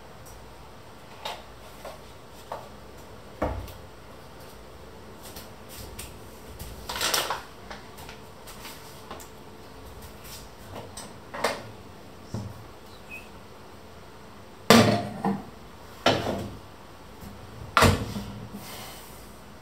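Scattered knocks and clatters of kitchen things being handled and set down, the three loudest coming close together in the last five seconds.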